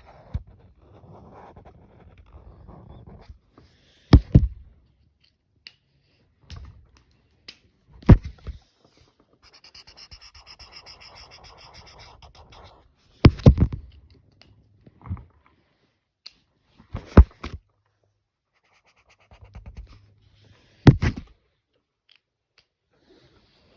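Exaggerated heavy breathing close to the microphone: five loud breaths about four seconds apart. Softer scratching of colouring strokes comes in between.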